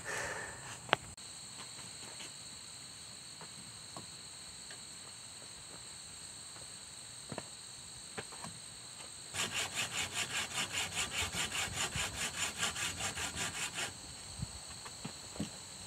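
Hand saw cutting through a log with a run of quick, even strokes lasting about four seconds, starting a little past the middle. Behind it runs a steady high-pitched insect drone.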